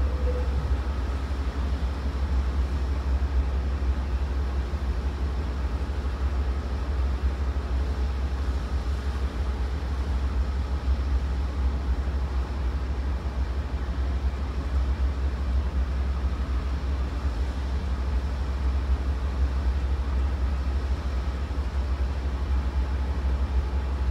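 Amtrak GE Genesis diesel locomotive idling with the train stopped, a steady low drone with faint even tones above it.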